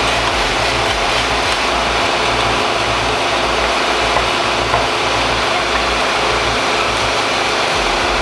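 A large engine running steadily, with a loud, even mechanical noise.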